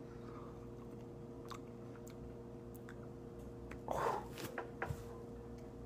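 A person chewing a bite of fish, with a few faint mouth clicks, and a short louder noise about four seconds in.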